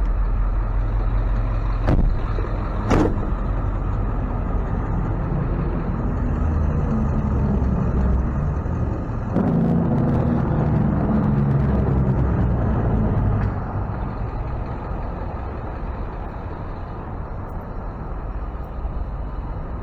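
Ford F-550 tow truck's engine idling with a steady low rumble, two sharp knocks about two and three seconds in, and a quieter stretch after the middle.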